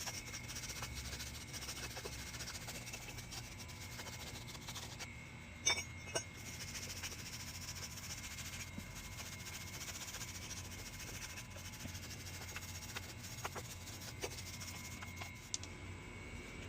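Wire brush scrubbing rust off a rear brake caliper bracket in bouts, with two sharp knocks about six seconds in.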